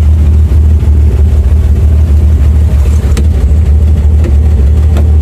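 Cessna 182's piston engine and propeller running steadily, a loud low drone heard from inside the cabin. A single sharp click sounds about three seconds in.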